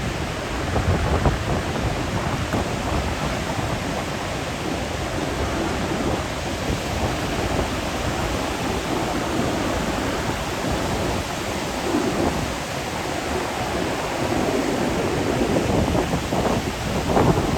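Ocean surf breaking and washing in, a steady rushing roar that swells and eases over several seconds, with wind rumbling on the microphone.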